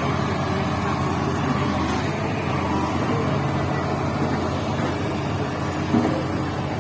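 Hydraulic excavator's diesel engine running steadily, with one brief louder knock about six seconds in.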